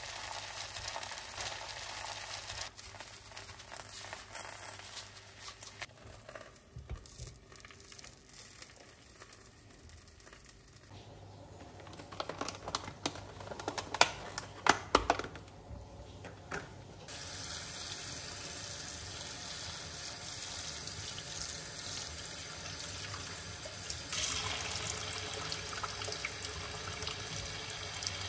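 Water running from a tap into a sink, coming on abruptly a little past halfway and then running steadily. Before that, a few sharp knocks and clatters.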